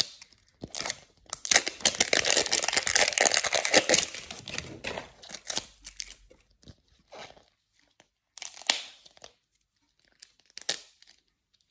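The plastic wrapper is being ripped off a toy surprise capsule ball: a long, dense crackling tear lasting a few seconds, then a few short crinkles as the last bits come away.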